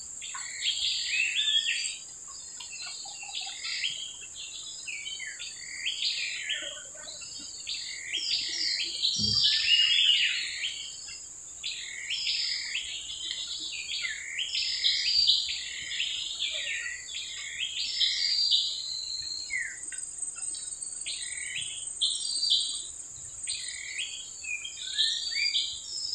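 Wild birds chirping and calling continuously in many short, irregular notes, over a steady high-pitched drone of insects.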